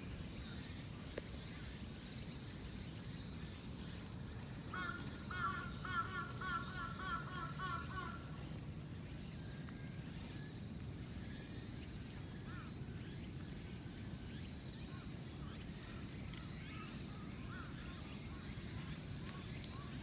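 Steady low outdoor rumble, with a quick run of short repeated animal calls, about three a second, from roughly five to eight seconds in.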